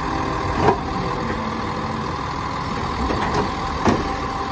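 Automated side-loader garbage truck running steadily as its hydraulic arm lifts and dumps a wheeled cart, with two sharp clanks, one under a second in and one near the end.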